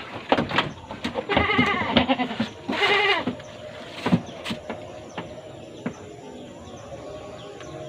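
Goat bleating twice, a wavering call about a second in and a shorter one near three seconds, with scattered knocks around it.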